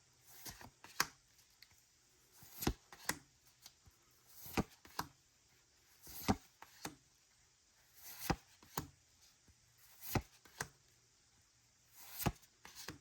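Pokémon trading cards from a freshly opened booster pack being gone through one at a time, each card slid off the stack with a short rustle and a sharp click or two, about every two seconds.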